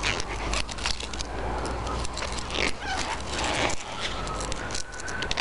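Close rustling and crinkling of a white cover sheet being handled on a PVC pipe frame, with many scattered clicks and knocks from the pipe and its fittings, over a low steady rumble.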